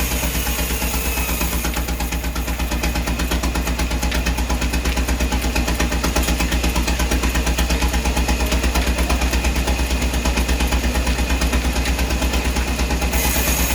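An engine running steadily at a fast, even pulse, with a strong low hum.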